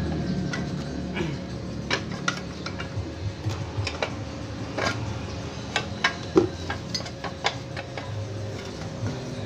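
Irregular light metallic clinks and taps as metal tools and parts are handled while a Satake rice husking machine is being taken apart, over a low steady background rumble.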